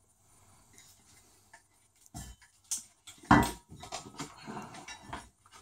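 An RC monster truck being turned over and set down on a workbench mat: a few hard plastic knocks, the loudest about three seconds in, then light rustling and clicking of handling.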